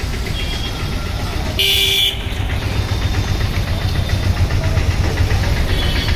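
A vehicle engine running with a steady low rumble, and a short horn toot lasting about half a second near the start.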